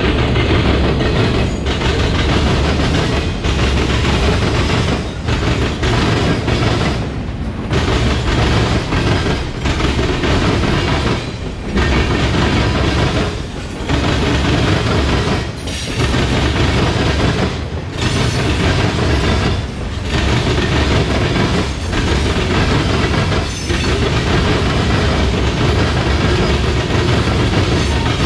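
Freight cars of a mixed freight train rolling past on the near track: a loud, steady rumble and clatter of steel wheels on rail, dipping briefly about every two seconds.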